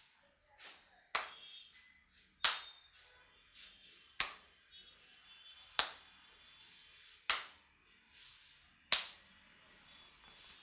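Sharp hand slaps of a head massage, six of them at an even pace of about one every second and a half, with soft rustling of hands on hair between.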